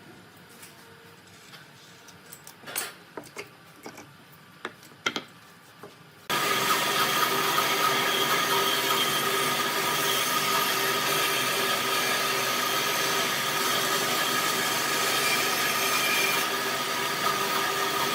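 A few light knocks and clicks of work on wood, then a power tool starts abruptly about six seconds in and runs steadily at a constant pitch, working the wood.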